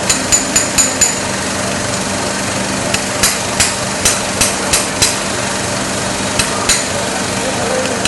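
Surgical mallet striking a small metal insertion instrument to knock a basal implant's base plate flush into the jawbone: light, sharp metallic taps, a quick run in the first second, a series of taps from about three to five seconds in, and two more near the end.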